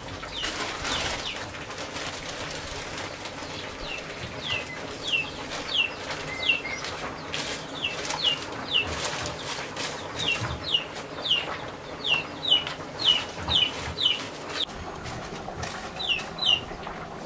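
A bird giving short, high chirps that fall in pitch, one or two a second, loudest and most frequent in the second half. Scattered clicks and rustles come in between.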